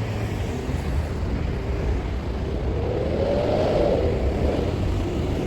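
Road traffic driving past, a steady rumble of cars. About three seconds in, one vehicle's engine note rises and then falls as it goes by.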